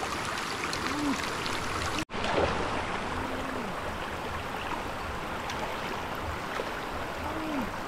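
Steady running stream water, cut off for an instant about two seconds in.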